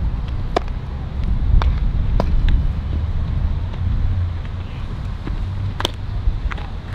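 Wind buffeting the microphone in a steady low rumble, with several sharp pops scattered through it.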